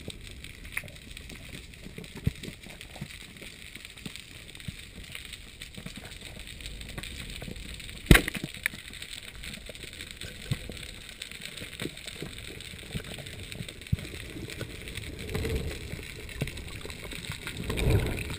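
Underwater sound heard through a diving camera's housing: a steady hiss with scattered small clicks and crackles, and one sharp crack about eight seconds in. Near the end a low rushing of water grows louder.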